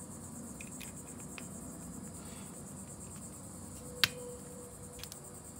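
Steady high-pitched insect chirring like crickets, with a few faint ticks and one sharp metallic click about four seconds in, as a flathead screwdriver loosens the breaker-points adjustment screws.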